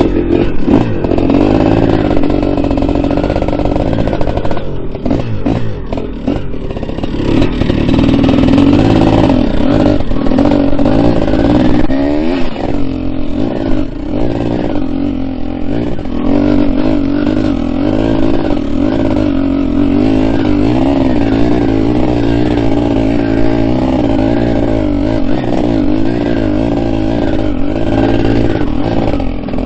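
Big-bore two-stroke dirt bike engine running under load while riding, its pitch wavering up and down with the throttle throughout.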